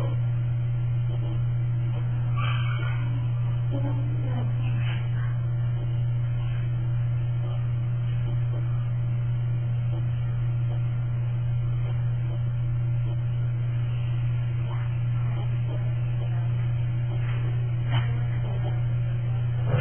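Steady low electrical mains hum, with a few faint short sounds over it.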